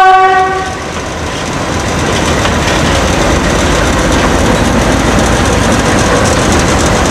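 A GE U20C diesel-electric locomotive's air horn sounds a chord that cuts off less than a second in. After it come the steady rumble of the locomotives' diesel engines running and the rolling noise of the consist moving along the track.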